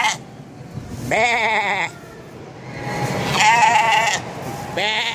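Young sheep bleating three times, about every second and a half, each bleat a wavering call lasting under a second.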